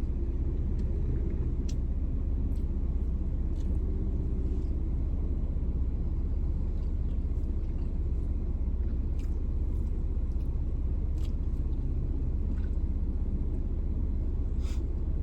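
Person eating a burrito, with faint mouth clicks and smacks of chewing every few seconds over a steady low rumble.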